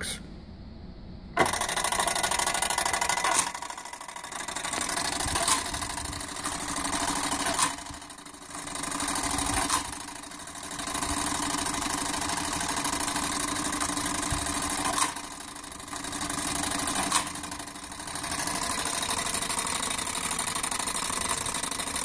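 Gamewell fire alarm call box and punch register working as an alarm is sent. The spring-driven clockwork starts suddenly about a second and a half in and runs with a steady mechanical whir, with occasional sharp clicks as the register punches the box's code into the paper tape. The level dips briefly now and then.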